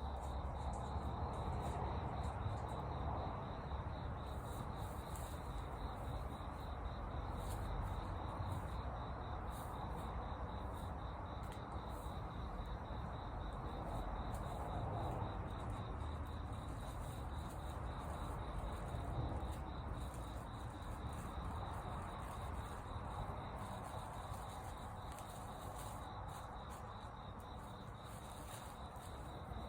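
A steady high insect trill, like crickets chirring, over a low, even background noise.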